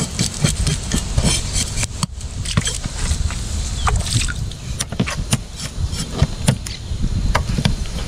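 A knife scraping over a snook's skin in a run of short, irregular strokes as the fish is scaled and cleaned, over a steady low rumble.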